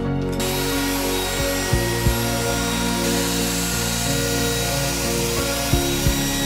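Electric router running and cutting along the edge of a round wood-slab tabletop with a 1/8-inch (3 mm) roundover bit, starting about half a second in.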